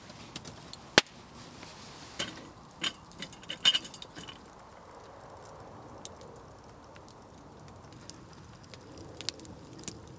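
Wood fire crackling and popping under a wire grill, with several metal clinks about two to four seconds in as a metal billy can is set on the grill. The loudest single pop comes about a second in, and faint crackles and ticks follow.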